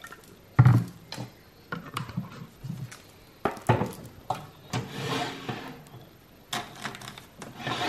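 Irregular knocks, clicks and clinks of a glass mug and coffee things being handled at a capsule coffee machine, with short rustling stretches; the loudest is a thump about half a second in.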